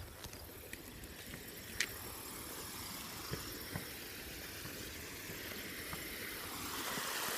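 Fast-flowing creek water rushing, growing louder near the end, over a steady low rumble, with a few light taps and clicks.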